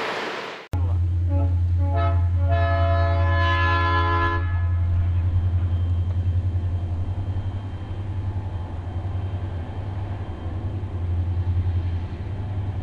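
Train horn sounding a chord, two short blasts and then one longer blast of about two seconds, over a steady low rumble of the train running.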